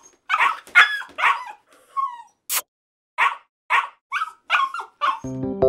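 A dog barking in a quick series of short barks, with a brief falling whine about two seconds in and a sharp click halfway through. Keyboard music starts near the end.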